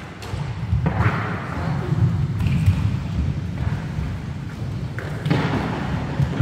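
Roller hockey play in a sports hall: inline skate wheels rumbling steadily on the wooden floor, with a few knocks and thuds and players' voices echoing in the hall.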